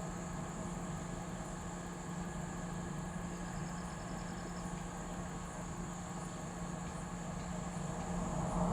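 Diesel engine of an XCMG 500-tonne truck crane running steadily at low revs, a constant hum.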